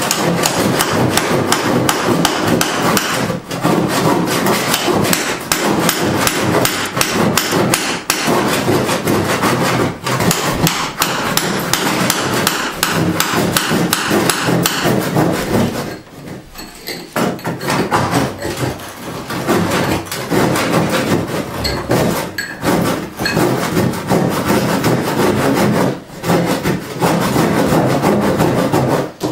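Hand saw cutting a wooden floorboard in quick strokes, mixed with hammer blows on brick; the work eases off briefly a little past halfway.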